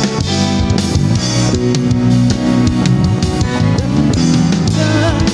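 Live gospel praise band playing: drum kit with bass drum and snare keeping a steady beat, with guitar and bass.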